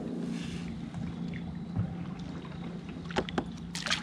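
Kayak on the water: a steady low hum, with a few sharp clicks and splashy knocks about three seconds in.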